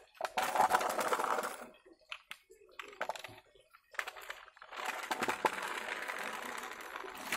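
Plastic toy vehicles scraping and clattering on concrete as they are handled and pushed, in two rattling stretches: one near the start and a longer one from about halfway to the end.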